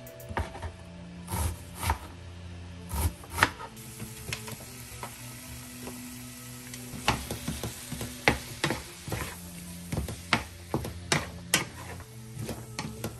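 Raw ground beef and chopped onion sizzling in a nonstick frying pan, stirred with a wooden spatula that knocks and scrapes against the pan in sharp clacks. Near the start come a few knife strokes through onion on a plastic cutting board.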